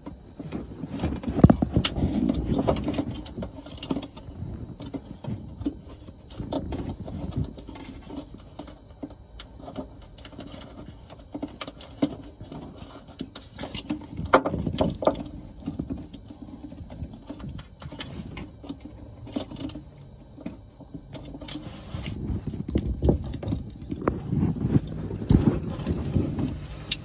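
Irregular clicks, knocks and rubbing from hands working a plastic livewell aerator pump housing into place among hoses and wires.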